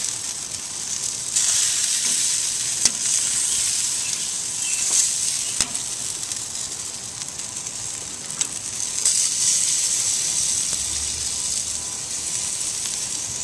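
Chicken thighs and bacon-wrapped beef steaks sizzling on a hot kamado grill grate. The hiss swells at times, and the metal tongs turning the meat make a few sharp clicks.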